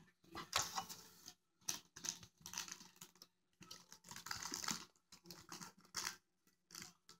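Plastic LEGO pieces of a toy mech clicking and rattling as fingers handle it, in short irregular bursts.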